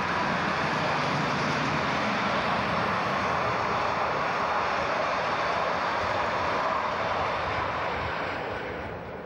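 Diesel locomotive running past along the line and pulling away, a steady engine and rolling noise that fades over the last couple of seconds.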